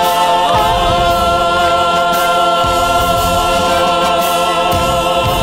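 A chorus of singers with band backing, singing a Vietnamese revolutionary marching song. They move to a new note about half a second in and hold it as one long note.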